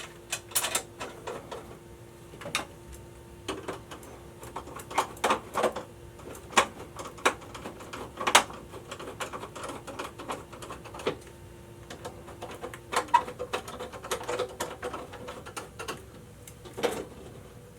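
Irregular clicks, taps and small metal knocks as the steel cover of an electrical subpanel is fitted back on and fastened.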